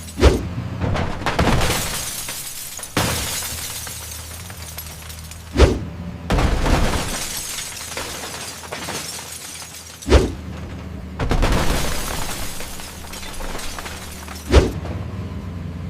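Cars being crushed: four heavy metal-and-glass crashes about every four and a half seconds, each followed by crunching and shattering glass, over a low steady machine rumble.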